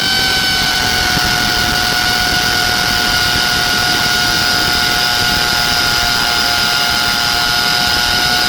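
Black & Decker hammer drill boring into concrete with a masonry bit: a loud, steady motor whine over grinding noise, dipping slightly in pitch about a second in as the bit bites.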